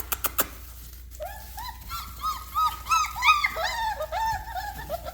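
Young puppies whining and yelping, a run of short, high, arching cries about three a second, several pups overlapping. A few sharp clicks come first.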